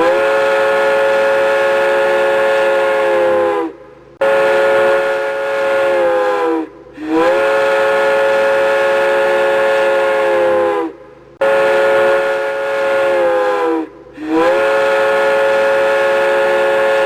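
Indian Railways locomotive horn sounding a chord of several notes in five long blasts of about three seconds each, with short gaps between them. Some blasts slide up in pitch as they start, and each sags as it dies away.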